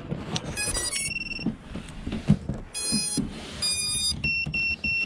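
Electronic startup beeps from an FPV drone as it powers up: a quick run of stepped notes, a held tone, two more tones, then three short identical beeps near the end.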